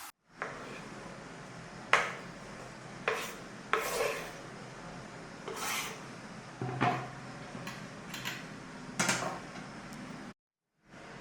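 Kitchen utensils clinking and scraping against dishes, about nine separate sharp knocks over a steady background hiss. The sound cuts off abruptly near the end.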